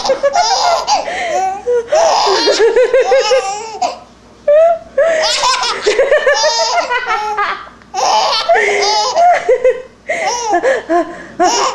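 Five-month-old baby girl laughing hysterically in a giggle fit: repeated belly laughs in several bouts, with short pauses for breath between them.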